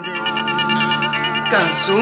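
Music with steady held notes, part of the drama's score between spoken lines.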